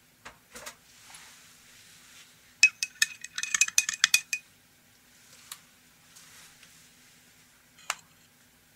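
A metal spoon stirring a latte in a glass tumbler, clinking rapidly and ringing against the glass for about two seconds. Near the end, a single sharp click as a hand takes hold of the glass on its slate coaster.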